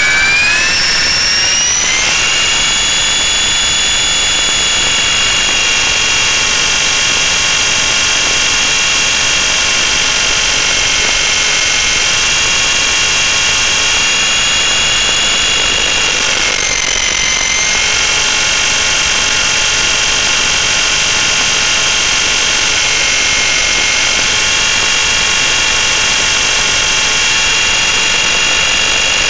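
Electric RC helicopter's motor and rotor whine, heard from the camera on board, over a rush of noise. It rises in pitch over the first two seconds as the rotor comes up to speed, then holds steady, with a brief dip in pitch about 17 seconds in.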